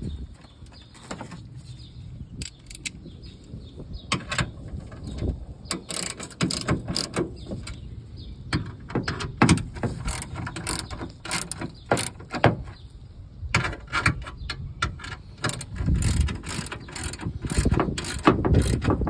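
Ratchet wrench clicking in short, irregular runs as bolts on the air-filter mounting plate are turned, with a few duller handling knocks near the end.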